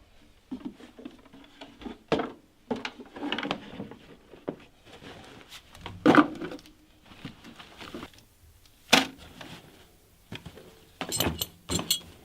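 Irregular knocks, clicks and light clatter of handled objects, with a quick run of sharp clicks near the end.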